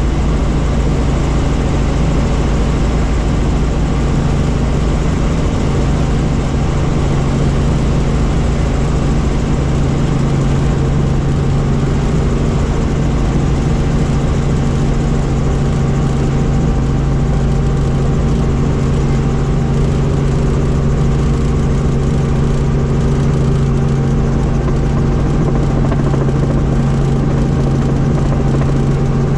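Helicopter engine and rotor noise: a steady, loud drone with a few held tones over a low rumble.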